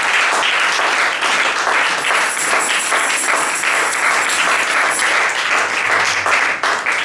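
A congregation applauding: many hands clapping in a dense, steady patter that starts as the sermon closes with "Amen" and keeps going.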